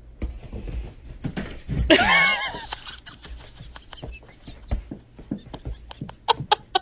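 A person laughing in bursts, loudest about two seconds in, with a quicker run of short laughs near the end.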